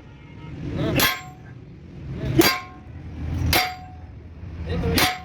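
Hammer striking steel parts: four ringing clangs a little over a second apart.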